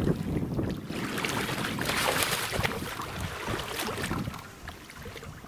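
Shallow seawater splashing as a snapper is handled and moved through it by hand, loudest about two seconds in, over a low rumble of wind on the microphone.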